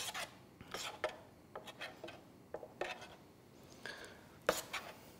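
Scattered light clinks and soft taps of a spoon against stainless steel trays and a bowl, with the soft drop of batter-coated tofu pieces into dry flour-and-panko breading.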